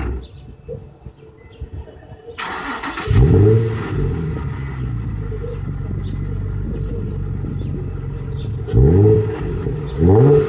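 Nissan 350Z's V6 through a Nismo S-Tune exhaust, cranked and started about two and a half seconds in. It flares up in pitch as it catches, settles to a steady idle, then gets two short throttle blips near the end.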